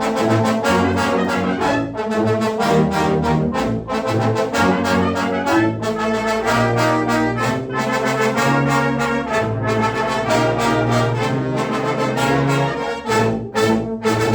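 Live brass ensemble of trumpets, horns and trombones playing a loud fanfare-style concert piece: rapid accented chords over held low brass notes.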